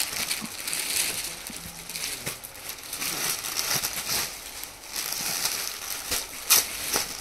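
Clear plastic packaging bags crinkling and rustling as packed suits are picked up, shifted and laid down, with irregular sharper crackles.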